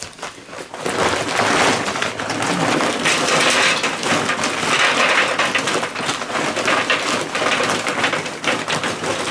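Charcoal briquettes poured from a paper sack into a metal chimney starter: a dense, continuous clattering of briquettes tumbling against the metal and each other, starting about a second in.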